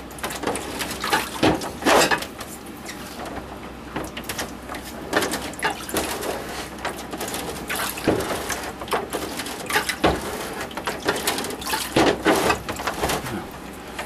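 Fixer solution splashing and sloshing, with frequent irregular knocks and clatters.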